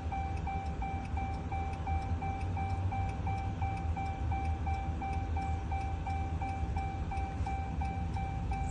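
Steady electronic beep tone, broken by short gaps about three times a second, over a low steady hum.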